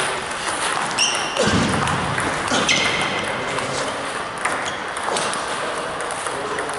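Table tennis balls struck by paddles and bouncing on the tables in a rally: an irregular run of sharp clicks and pings, some ringing briefly, with the echo of a large gym hall.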